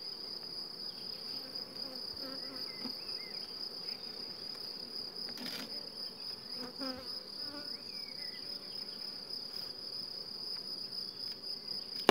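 Honeybees buzzing around an open hive under a steady high-pitched insect trill. There is a single click about five and a half seconds in and a sharp knock right at the end.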